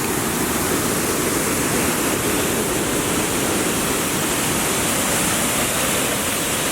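Large waterfall crashing down close by: a loud, steady rush of falling water.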